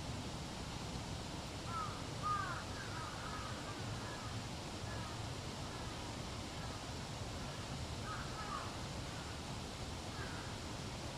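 Crows calling in short bursts: a cluster of calls about two seconds in, more around eight seconds, and one near the end, over a steady low background noise.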